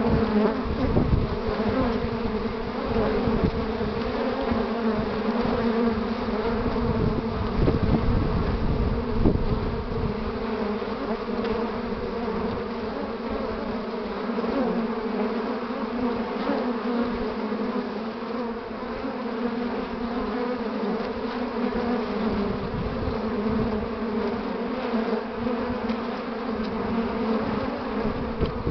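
Many honeybees buzzing in a steady, dense hum at the hive entrance, busy foragers flying in with willow pollen loads. A low rumble sits underneath for roughly the first ten seconds and again near the end.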